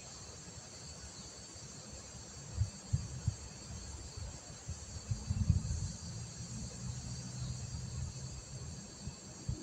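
Steady high-pitched insect chorus, with a cluster of low thumps and rumbles from about two and a half to six seconds in.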